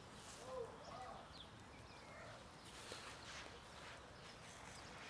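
A cat gives one short meow about half a second in; the rest is near silence.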